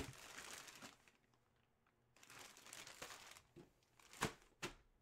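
Faint crinkling and rustling of a plastic-bagged jersey and a cardboard box lid being handled, followed by three light knocks in the second half.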